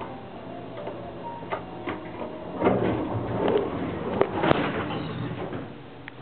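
Otis traction elevator's sliding doors moving and closing, with a sharp knock about four and a half seconds in, among scattered clicks over a low steady hum.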